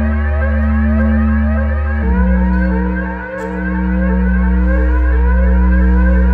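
Live progressive-rock synthesizer passage: held low bass notes under repeating rising synth sweeps that sound like a siren, about two a second. The bass note steps down about two seconds in.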